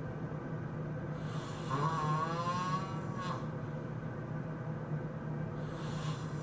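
A sleeping person snoring: one long, wavering, pitched snore starting about a second in and lasting about two seconds, then a softer, breathier one near the end, over a steady low hum.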